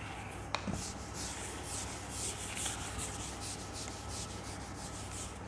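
Whiteboard eraser wiping marker off a whiteboard in repeated back-and-forth rubbing strokes.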